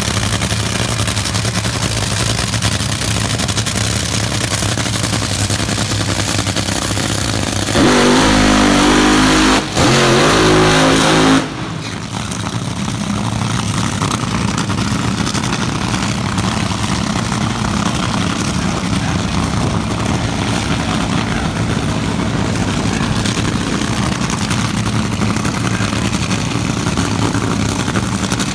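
Nitro-burning Top Fuel dragster engines running steadily at the line. About eight seconds in they go to full throttle for a much louder pass of roughly three and a half seconds, rising in pitch, which cuts off suddenly. A steady engine rumble carries on afterwards.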